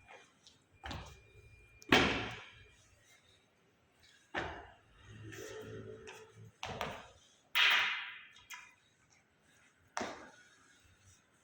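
A series of about six sharp knocks and thuds at irregular intervals, the loudest about two seconds in, each dying away quickly: a martial-arts staff striking and being handled during a form drill.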